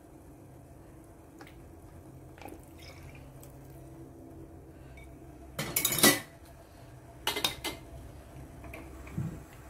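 A plastic spoon and other utensils knocking against a stainless steel cooking pot. A few light clicks, then a loud clatter about six seconds in, a shorter one about a second later, and a dull knock near the end.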